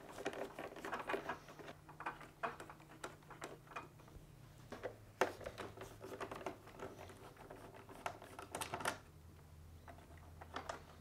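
Irregular small clicks and rattles of a 1/4-inch nut driver backing screws out of a refrigerator's plastic dispenser housing, with hands knocking against the plastic and wiring.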